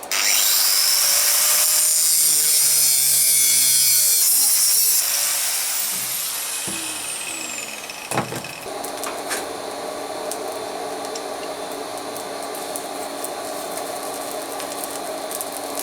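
Power tool cutting through a 5160 steel coil spring. It starts with a rising whine and cuts loudly for about five seconds, then is switched off, its whine falling as it spins down. A quieter steady hum carries on after.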